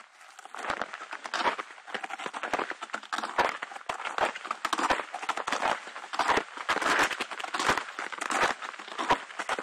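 Footsteps crunching through snow at a steady walking pace, about three steps every two seconds.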